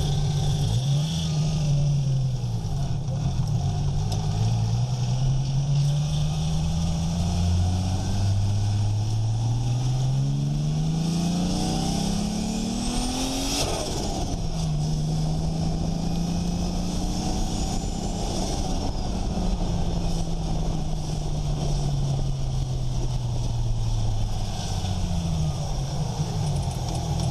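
Nissan RB25DET turbocharged straight-six revving and pulling: the engine climbs in pitch several times, the longest climb peaking about halfway through, then winds down slowly, with turbo flutter as the throttle closes.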